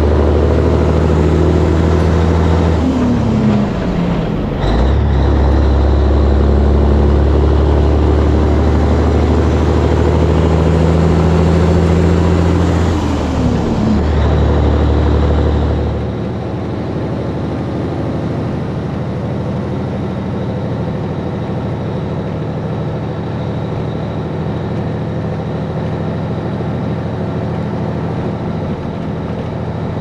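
Peterbilt 362 cabover's Caterpillar diesel pulling hard under load, its revs dropping at two gear shifts, about three seconds in and again around thirteen seconds. After about sixteen seconds the sound falls to a quieter, steady engine and road noise.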